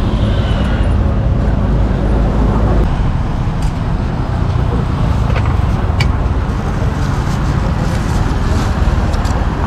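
Steady roadside traffic noise from passing motorbikes and cars, a deep continuous rumble, with a few sharp clicks near the middle.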